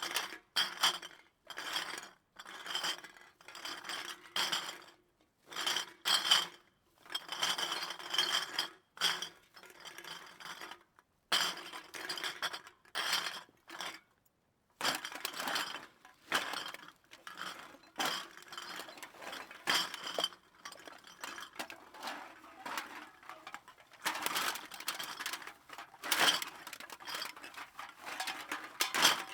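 Empty glass bottles clinking against one another in a long series of short, irregular bursts with brief pauses, the glass ringing after each knock, heard from some distance away.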